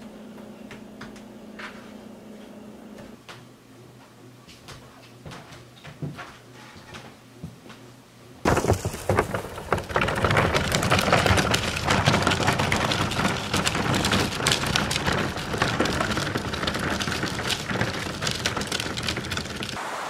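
Fire burning in a steel burn barrel: a dense crackling and rushing of flames that starts abruptly about eight seconds in and stays loud. Before it there is a low steady hum with a few faint clicks.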